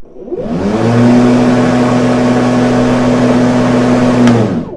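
Sun Joe iON 40-volt cordless lawn mower's electric motor and 16-inch blade spinning up with a rising whir, then running steadily with a loud hum and a rush of air. It winds down and stops near the end.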